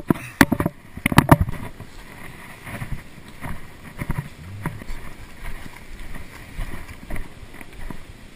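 Several sharp knocks and clicks in the first second and a half, then water lapping and splashing at a lakeshore.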